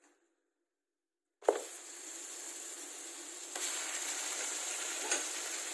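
Silence, then about a second and a half in a sudden start of steady sizzling: raw chicken pieces frying in hot coconut oil with ground masala in a pan, growing a little louder partway through.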